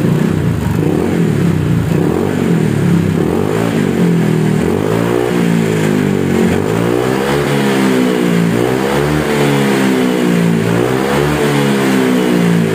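Honda PCX 160 scooter's single-cylinder engine revved repeatedly through an aftermarket SKR Racing 'super bass' muffler, its pitch rising and falling several times. A mellow, deep rumble that is not noisy.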